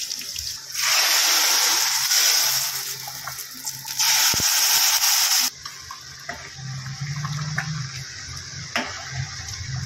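Hot oil tempering of mustard seeds, curry leaves and golden-fried onions poured into a pot of sambar, sizzling in two loud bursts: one about a second in, another about four seconds in that cuts off suddenly.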